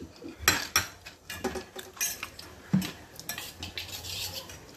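A metal utensil clinking, knocking and scraping against steel cookware in a series of irregular sharp clicks.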